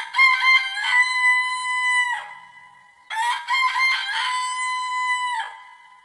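A rooster crowing twice: each crow opens with a few short rising notes, then holds one long steady note that falls off at the end.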